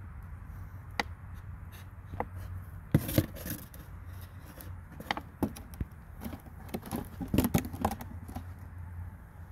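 Thin plastic water jug, cut in half, crinkling and clicking as its top half is lifted off and pressed back on over the bottom half. The sound comes in irregular cracks, with two busier clusters about three seconds in and again about seven to eight seconds in.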